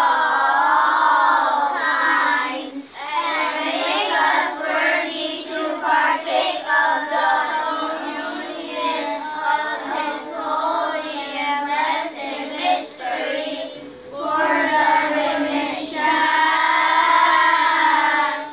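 A group of young children singing a church hymn together, with short breaks for breath about three seconds in and near fourteen seconds.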